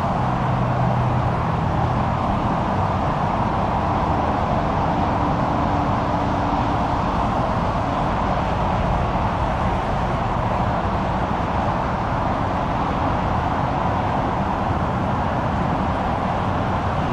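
Steady, even roar of jet airliner engines running at the airfield, with no rise or fall in level.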